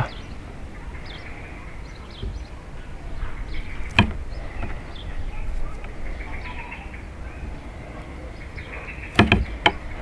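Sharp knocks of a knife against a wooden cutting board while smoked salmon is sliced: one about four seconds in and a quick cluster of several near the end. Faint bird chirps and a low rumble run underneath.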